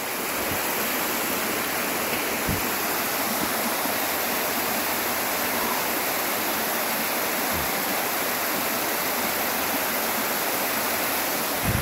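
Waterfall: a wide sheet of water rushing steadily down a sloping bare-rock slab.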